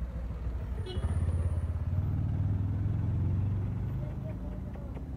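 A motor vehicle's engine running close by, getting louder about a second in and easing off near the end, with one sharp click about a second in.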